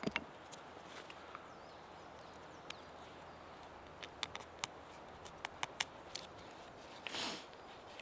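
Handling sounds from sticks and bark-fibre strips being worked by hand: scattered sharp clicks, a few close together in the middle, and a brief rustle about seven seconds in.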